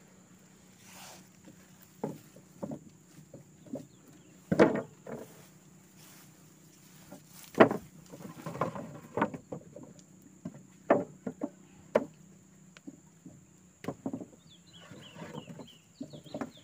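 A series of irregular knocks and thuds, the loudest about four and a half and seven and a half seconds in, over a steady high insect drone. Faint chirps come near the end.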